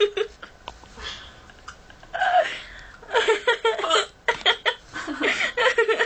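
A hiccup attack: sharp hiccups mixed with laughter, with quick runs of laughing from about halfway through.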